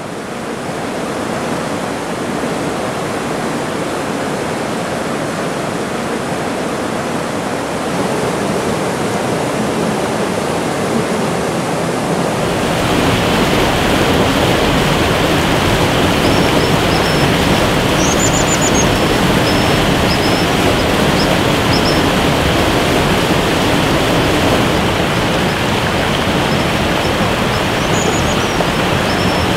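Steady rush of a waterfall and creek, fuller and louder from about halfway through.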